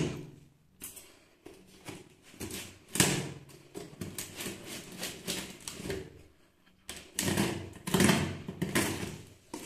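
Scissors cutting and scraping along packing tape on a cardboard box: irregular clicks and scratches, with one sharp click about three seconds in and a louder scraping stretch near the end.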